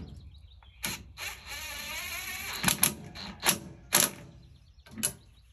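Handling of a cordless impact wrench and a freshly loosened steering-wheel bolt: a series of sharp metal clicks and knocks, with a rough rattling stretch lasting about a second, about a second and a half in.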